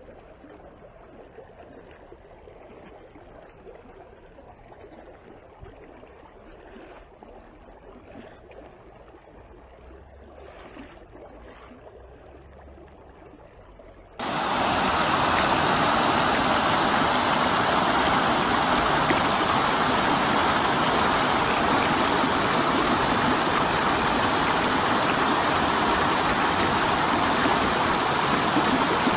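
A faint hum with a few faint clicks, then about halfway in loud rushing river water starts abruptly and runs on steadily.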